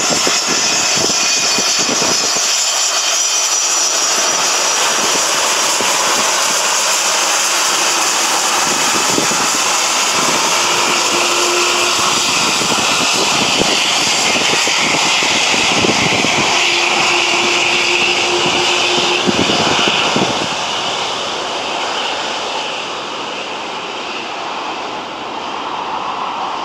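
Boeing 757-200 freighter's twin jet engines running at taxi power: a steady jet rush with a high whine on top, getting somewhat quieter about twenty seconds in.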